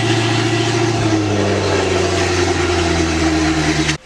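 An engine running steadily at a near-constant pitch. It starts and cuts off abruptly.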